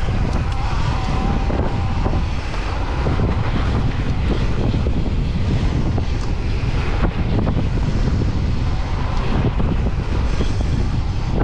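Wind buffeting the microphone while a Santa Cruz Bronson C mountain bike rolls fast down a dirt trail, a steady low rumble with scattered small clicks and rattles from the bike and tyres.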